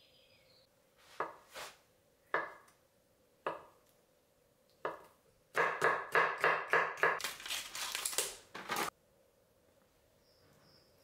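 Chef's knife on a wooden cutting board: five separate knocks, then about three seconds of quick chopping, roughly five strokes a second, as a green chili pepper is sliced.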